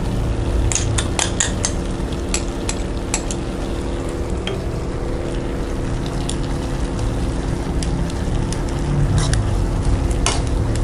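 Metal tongs tossing spaghetti in a simmering coconut-milk curry sauce in a frying pan: wet stirring and a steady sizzle, with sharp clicks of the tongs on the pan in a cluster about a second in and again near the end. A steady low hum runs underneath.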